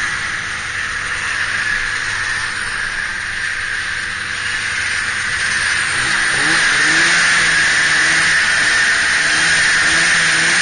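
Snowmobile engine running at speed under a steady rushing hiss; about six seconds in the engine note gets louder and its pitch wavers up and down.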